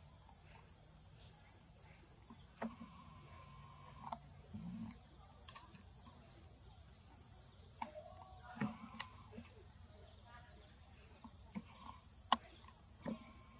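An insect chirping steadily in rapid, even high pulses, about five or six a second, with a few faint clicks and knocks scattered through.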